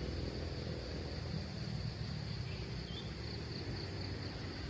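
Insects chirring steadily and high-pitched, over a low, steady rumbling noise.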